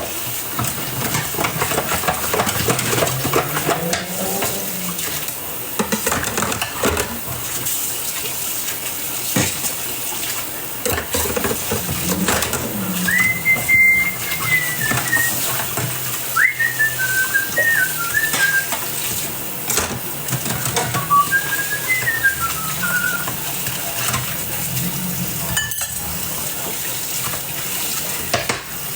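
Kitchen clatter of dishes, pots and cutlery being handled, with many small knocks and clinks. Someone whistles a few short phrases of a tune about halfway through.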